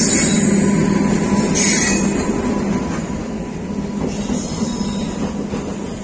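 Electric locomotive and container freight wagons passing close by at speed: a steady heavy rumble of wheels on rail, with a brief high screech about two seconds in.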